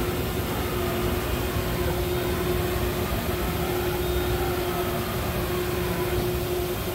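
Okuma MX-50HB horizontal machining center running under power: a steady mechanical hum over a low rumble, with a faint whine that rises and falls in the middle.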